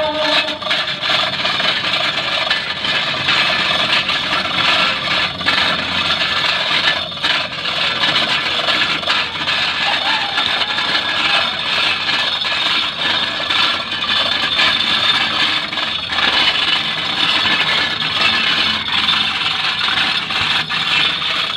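Chain hoist rattling steadily, with scraping and clicking, as an engine hanging from it is lowered into place.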